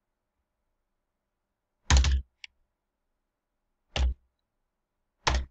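Computer keyboard keystrokes heard as dull thumps with a click: a quick double stroke about two seconds in with a light click after it, then single strokes about four seconds in and near the end.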